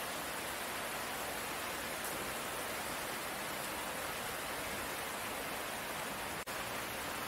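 Steady rain, an even hiss with no separate drops standing out. It cuts out for an instant about six and a half seconds in.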